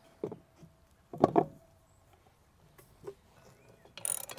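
A single clunk with a short ring about a second in as the pool pump motor and its seal plate are handled. Near the end, a ratchet wrench starts clicking, tightening the seal plate bolts onto the motor.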